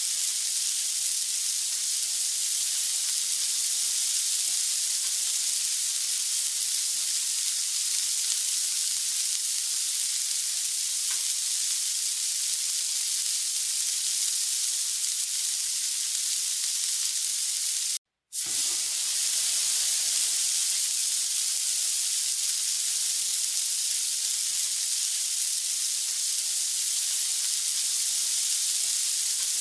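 Samgyeopsal pork belly sizzling steadily on a grill, a continuous high, hissing fry. The sound cuts out for a split second once, about two-thirds of the way through.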